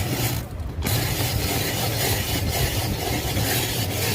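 Ice being shaved for an ice gola: a steady grinding, scraping noise with a low hum under it.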